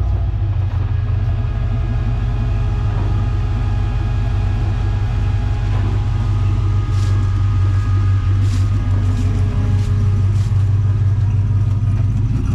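Vehicle engine running steadily at low speed, a deep even hum, with a few faint ticks in the second half.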